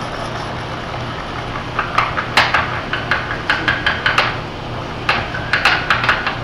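Porcelain pestle grinding and knocking in a porcelain mortar, crushing leaf tissue frozen in liquid nitrogen to a fine powder. Quick, irregular clicking scrapes come in two spells, the first beginning about two seconds in.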